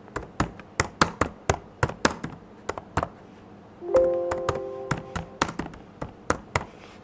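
Typing on the HP 15s-eq0024au laptop's keyboard: a run of light, clicky key presses, about three to four a second. About four seconds in, a chime of several notes rings out over the typing and fades over roughly two seconds.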